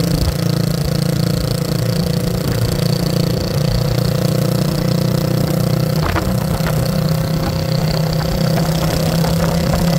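A motor vehicle's engine running steadily with a low hum over a rough low rumble, with a brief click about six seconds in.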